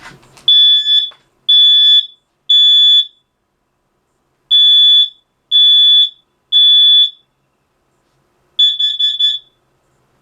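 Combination smoke and carbon monoxide detector sounding after its battery pull-tab has activated it: three loud, high-pitched beeps, a pause, three more, then a quick string of short beeps near the end. The three-beep groups are the standard smoke-alarm pattern.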